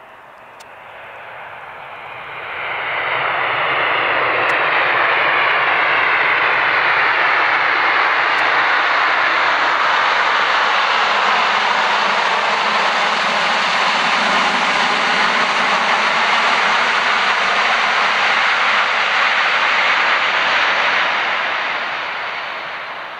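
Skymark Boeing 737-800's CFM56 jet engines running loud on its landing roll as it passes close by. The roar swells sharply about two to three seconds in, holds steady, and fades near the end.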